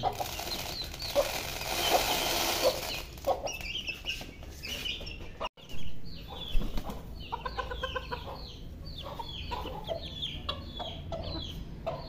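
Millet seed scattered by hand into a wire cage, a short rushing hiss. After a break, chickens clucking, with many short, falling chirps as they gather to peck at food.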